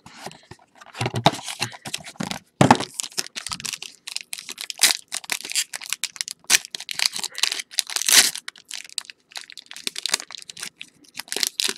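Plastic wrapping being torn and crinkled off a box of baseball cards, with irregular crackling and rustling as the box is opened and the cards handled.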